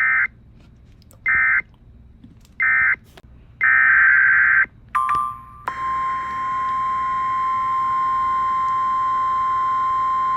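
Emergency alert data bursts: three short screeching bursts about a second and a half apart, then a longer one, the coded end-of-message and header signals. Then a steady, single high alert tone begins a little before the middle and holds, the weather radio warning alarm before the next warning.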